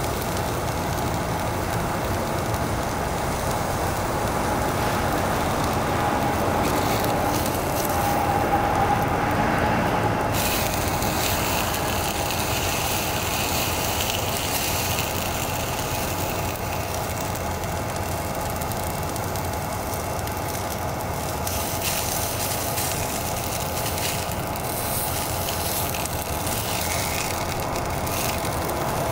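Single-burner canister gas stove burning steadily under a pan of sausages and french fries that are frying: a constant hiss and sizzle.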